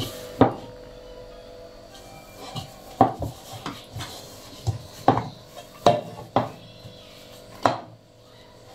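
Hand punching down and kneading risen yeast dough in a bowl: a string of about seven dull knocks and thumps at uneven intervals as the dough is pressed and the bowl knocks on the counter, over a faint steady hum.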